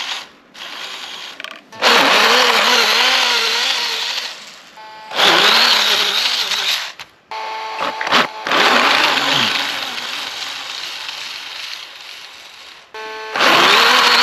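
RC snowmobile's 540 brushless electric motor and gear drive whirring in about four bursts under throttle, its pitch wavering as the track churns through deep snow.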